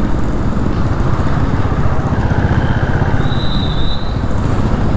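Royal Enfield Classic 350's single-cylinder engine running steadily while riding through traffic, heard from the rider's position. A faint high-pitched tone sounds from about halfway through.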